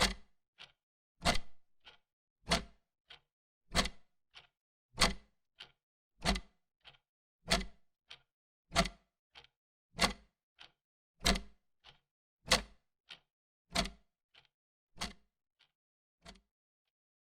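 Grandfather clock ticking: a strong tick alternating with a softer one, about one pair every 1.25 seconds, growing fainter near the end and then stopping.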